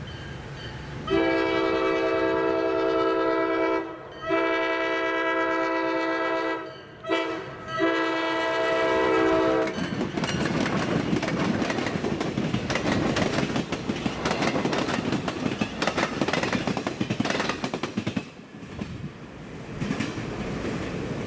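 Diesel locomotive air horn from ex-Canadian National FP9 locomotives blowing the grade-crossing signal: two long blasts, a short one and a long one. The locomotives and cars then pass close by, their noise dropping off near the end.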